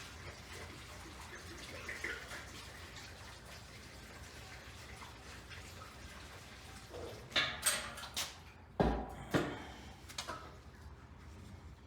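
Gasoline trickling from a gas can through a funnel into a small engine's fuel tank, a faint steady pour. It is followed by several sharp clunks and knocks of handling between about seven and ten seconds in.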